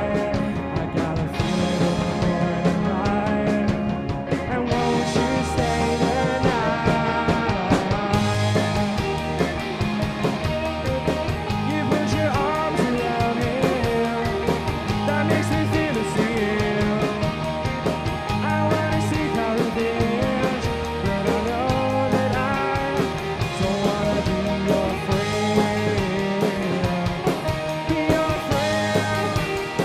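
Indie rock band playing: electric guitars over bass and a drum kit, with a steady repeating bass line.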